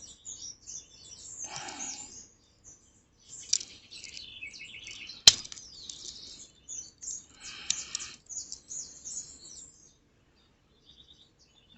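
Small birds chirping in the background, with one sharp click about five seconds in.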